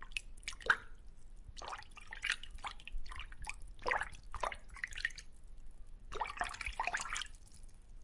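Water dripping and bubbling: short, irregular plops and pops, some falling in pitch, coming in clusters with quieter gaps between.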